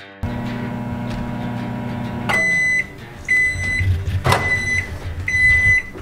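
Hamilton Beach microwave oven running with a steady hum, then it stops about two seconds in. Its end-of-cycle beeper sounds four times, half-second beeps about a second apart, signalling that the heating is done. A sharp click about four seconds in as the door is pulled open.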